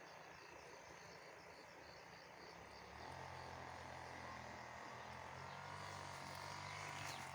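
Faint crickets chirping in quiet countryside. About three seconds in, a low steady hum sets in and continues.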